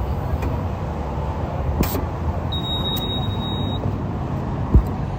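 Steady low rumble of road vehicle noise. A short high-pitched electronic beep lasts about a second midway through, and a brief thump comes near the end.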